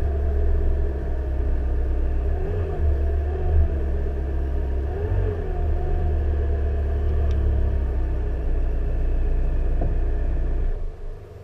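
Mid-engined supercar's engine running at low revs while the car creeps along, with a steady deep low note and a couple of small rises and falls in pitch; the engine cuts off near the end.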